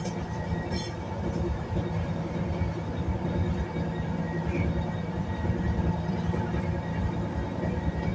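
Batara Kresna diesel railbus running, heard from inside the car: a steady engine hum over the rumble and fine rattle of wheels on rail, with a brief high clatter about a second in.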